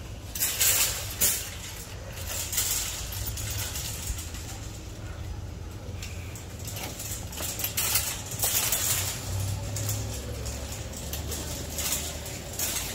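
A wire shopping cart rattling and clattering as it is pushed, with irregular clanks as it rolls over a door threshold and onto a hard store floor.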